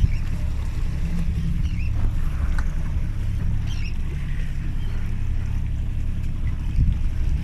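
Fishing boat's engine running steadily with a low rumble while trolling, with a few faint, short high squeaks now and then.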